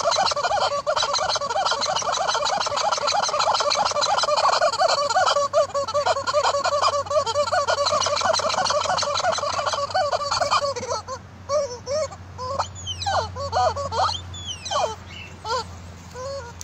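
Yellow rubber chicken squeak toy squawking over and over as a horse chomps on it in its mouth: a fast, unbroken run of squawks for the first ten seconds or so, then slower, separate squawks that rise and fall in pitch.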